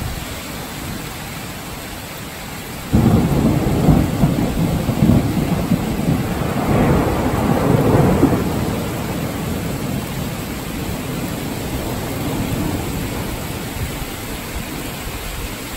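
Heavy rain falling steadily in a thunderstorm, with a sudden clap of thunder about three seconds in that rolls on as a rumble, swells again and fades out several seconds later.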